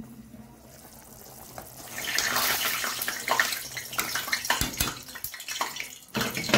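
A pot of red sauce bubbling and sizzling, a dense crackling hiss that grows much louder about two seconds in as the glass lid comes off. A few sharp knocks come near the end.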